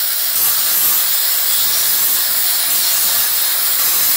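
Two angle grinders grinding steel, deburring the cut edges of perforated square steel tubing: a loud, steady, hissing grind of abrasive disc on metal. It gets louder about half a second in.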